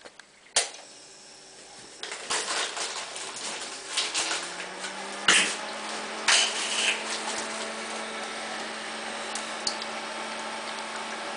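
A switch clicks on a Vaihinger Sanomat Euro Favorit whipped-cream machine. About two seconds later its motor starts running with a steady hum and hiss, rising slightly in pitch and then holding. A few sharp knocks from handling the machine come about halfway through.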